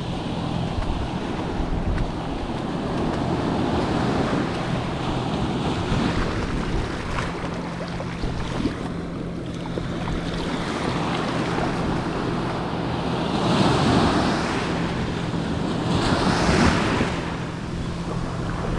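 Ocean surf breaking and washing up over sand around the feet, with wind buffeting the microphone. The wash swells louder twice near the end.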